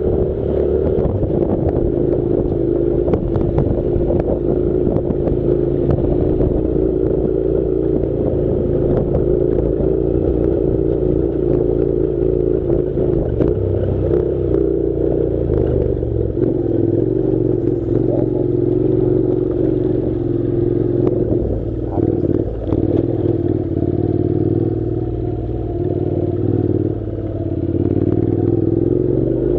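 Honda NC700's 670 cc parallel-twin engine running steadily at low speed on a gravel road, with many small ticks and knocks from stones under the tyres. The engine note eases off briefly a couple of times in the second half.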